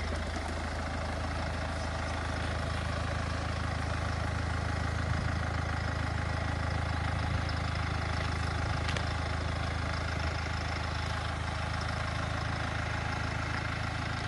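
Hyundai Terracan SUV's engine running steadily at low revs as the truck crawls slowly through a cross-axle ditch.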